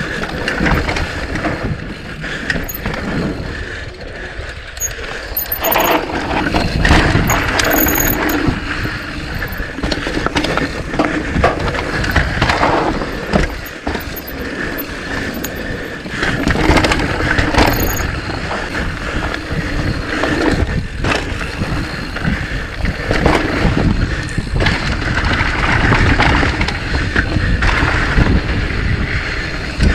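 Mountain bike riding down a dirt trail: tyres rumbling over dirt and rocks with a steady clatter of chain and frame, the loudness rising and falling with the terrain.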